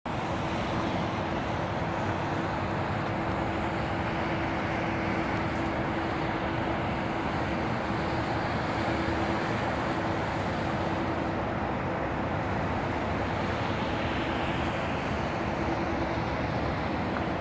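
Steady wash of distant city traffic noise with a constant low hum running through it.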